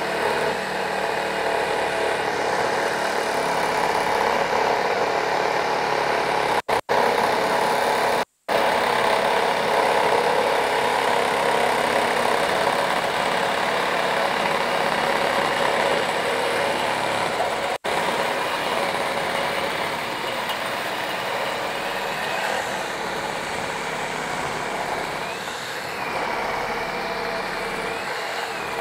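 Ryobi One+ HP one-handed reciprocating saw running flat out, its blade sawing through a 2¼-inch metal pipe under heavy load: a steady rasping buzz. It breaks off very briefly three times and eases slightly in the later part of the cut.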